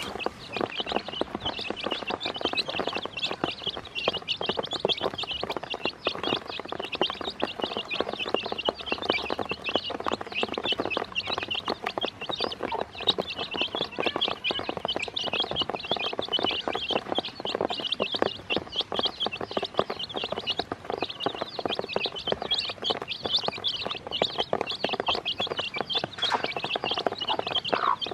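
A brood of day-old chicks peeping constantly, many high cheeps overlapping without a break, mixed with quick taps of beaks pecking feed off the bottom of a plastic basin.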